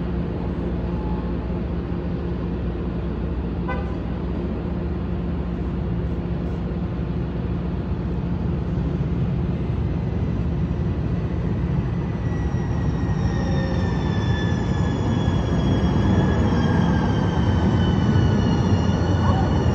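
A train pulling into the station: a steady low rumble grows louder, and from about twelve seconds in a high whine of several tones slowly falls in pitch.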